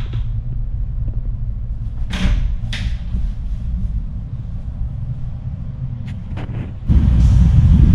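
Steady low drone of the Starlite Pioneer ferry's engines, heard through the ship's structure, with two sharp clicks a little after two seconds. About seven seconds in, the drone jumps much louder as a door opens onto the passageway.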